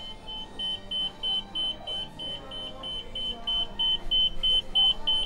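Shop anti-theft security gate alarm beeping: a high electronic beep repeating about three times a second, getting louder toward the end.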